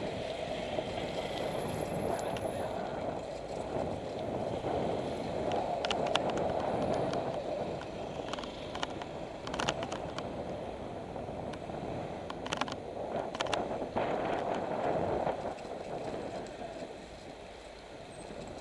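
Wind and rolling noise on an action camera's microphone as a bicycle is ridden, a steady rushing sound, with a few sharp clicks through the middle.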